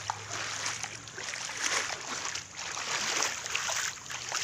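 Footsteps in sandals splashing through shallow standing water on a flat concrete roof, a series of uneven steps.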